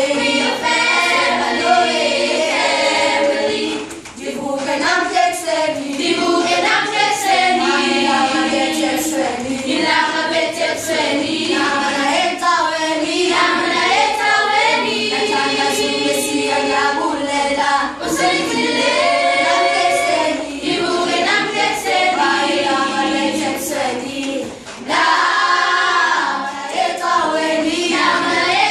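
Grade 7 children's choir singing unaccompanied in several voices, with short breaks between phrases.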